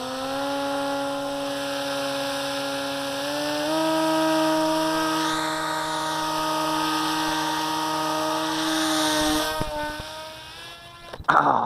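Electric motor and propeller of an RC flying wing running up at full throttle on a hand launch: a steady whine that steps a little higher about four seconds in and cuts off about nine and a half seconds in. A short, loud burst of noise follows near the end.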